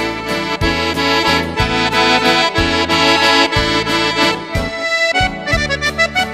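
Instrumental music: held chords over a bass note about once a second, breaking into a quicker run of separate notes near the end.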